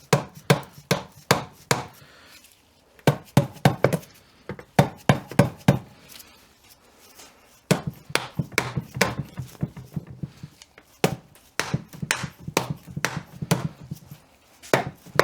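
Hammer striking the cover of a Getrag 226mm differential housing in bursts of quick, sharp blows, about three a second with short pauses between bursts, to knock the stuck cover loose.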